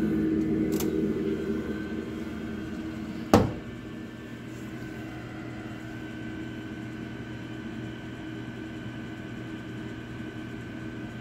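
Steady hum of running workshop machinery with a few held tones. One sharp knock comes a little over three seconds in, after which the hum is quieter.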